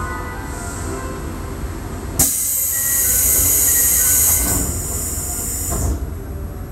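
Toei Asakusa Line 5300-series subway train running, heard from on board: a steady low rumble with faint motor tones. About two seconds in, a loud high hiss or screech cuts in and stops suddenly about three and a half seconds later.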